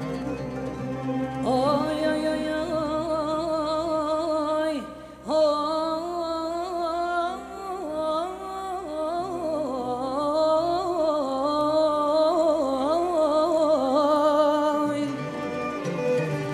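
A male singer's long, ornamented melismatic line over an Andalusian orchestra of ouds, violins and accordion. The voice enters about a second in, breaks briefly around five seconds in, and stops shortly before the end.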